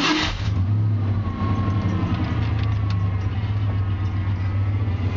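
Pickup truck engine idling steadily just after starting, coming down from a louder surge in the first moment.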